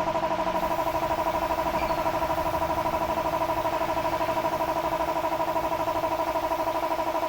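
A small motor running steadily, its hum pulsing quickly and evenly at about ten beats a second.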